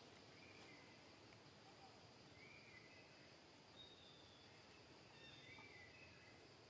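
Near silence: faint forest ambience, a steady high insect drone with a few short, faint high-pitched calls scattered through it.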